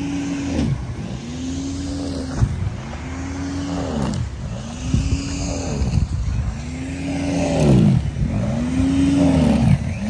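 Corded electric snow thrower running while it clears deep snow. Its motor pitch dips and recovers about every second and a half as it bites into the snow.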